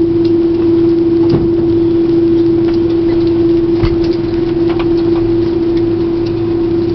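Airbus A330 cabin noise while taxiing after landing: a steady drone with a constant tone, and two faint knocks, one about a second and a half in and one about four seconds in.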